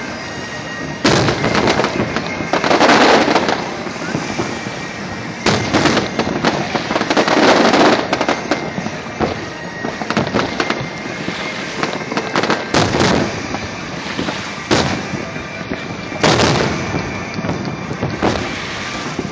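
Aerial fireworks shells bursting, with loud booms every one to three seconds over a steady crackle and hiss.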